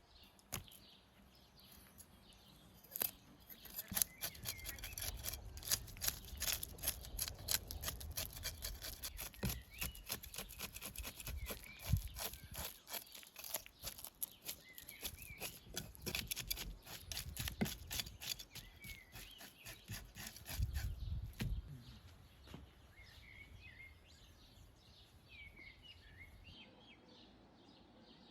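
Songbirds chirping, with a long, dense run of sharp crackling clicks over a low rumble from about three seconds in until it dies away past twenty seconds.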